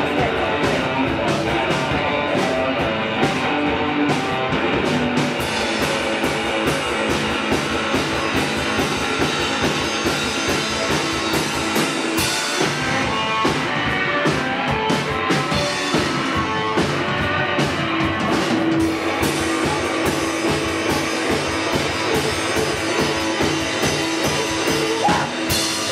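Rock band playing, with electric guitar over a drum kit at a steady, loud level.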